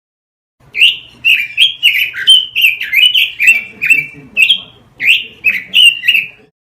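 Red-billed leiothrix (Pekin robin) singing a loud, rapid phrase of about fifteen sharp downslurred notes, two to three a second. It starts about a second in and stops shortly before the end.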